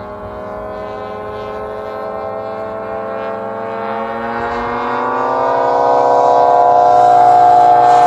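Engines of three giant-scale radio-controlled model airplanes flying together, a steady layered engine tone. It grows steadily louder and rises slightly in pitch from about halfway through as the planes come closer.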